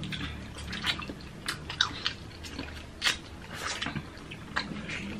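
Close-up wet eating sounds: biting and chewing juicy ripe mango and mandarin segments, with irregular sharp mouth clicks and smacks.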